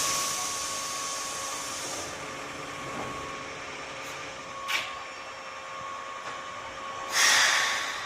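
A Keihan Main Line electric train, heard as a steady mechanical hiss with a thin, constant high whine. There is a short sharp click about two-thirds of the way in, and a louder hissing burst about a second long near the end.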